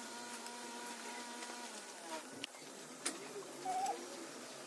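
A steady buzzing hum that stops about two seconds in, with a few light clinks of small metal alternator parts being handled on a workbench and some short wavering squeaks in the second half.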